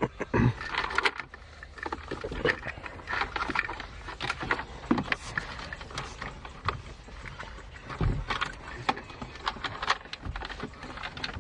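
Irregular clicking, knocking and rustling of plastic dashboard trim and wiring-harness connectors being handled and pushed into the radio bay of a car dashboard.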